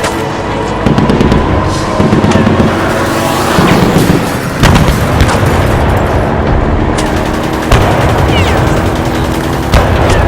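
Battle sound-effect mix: gunfire and machine-gun bursts with booming explosions over music and a continuous low rumble, with heavy hits about every one to three seconds.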